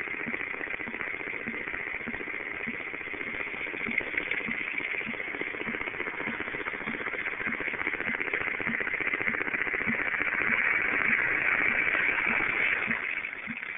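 Radio receiver static: a steady hiss with a regular low pulsing of about two or three beats a second, interference that a nearby mobile phone appears to be causing. The hiss swells in the last few seconds and then begins to fade.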